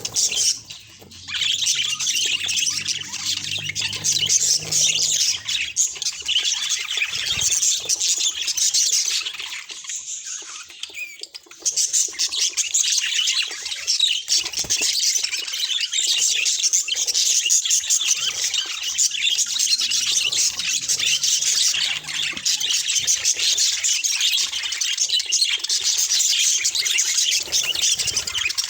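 Budgerigars chattering and warbling in a fast, continuous stream of chirps and squawks, with a short lull about a second in and a softer stretch around ten seconds in.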